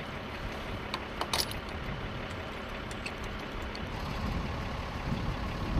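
An engine running steadily, with a few light metallic clinks about a second in.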